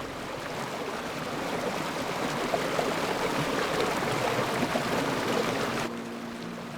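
Stream water running steadily over stones, cutting off abruptly near the end to a quieter background with a faint steady low tone.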